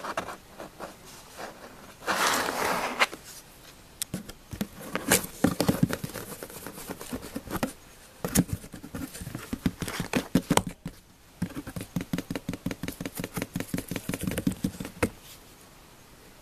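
An American Shorthair kitten's paws patting and scratching at a cardboard box, a busy run of taps and claw scrapes on the cardboard, with a fast, even series of scrapes for a few seconds near the end and a brief rustle about two seconds in.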